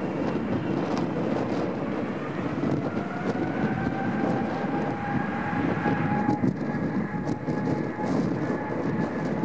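Boeing 777-300ER's GE90 turbofan engines running as the airliner taxis, a steady jet rumble. Over it a whine climbs a little in pitch during the first few seconds, then holds steady.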